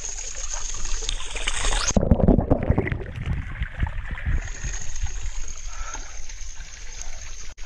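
Water running steadily from a fountain spout and splashing, with knocks and rumbling from the camera being handled close by.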